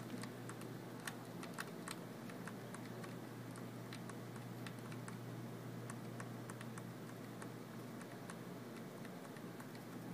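Computer keyboard keys tapped repeatedly, light irregular clicks a few times a second, as keys are pressed to get into the BIOS during start-up, over the steady low hum of the running PC.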